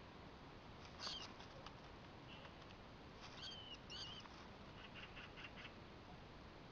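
Faint, high-pitched squeaks from a baby rat clinging to a bush branch as a kitten swats at it: one sharp squeak about a second in, two short bending squeaks around the middle, then a quick run of faint chirps.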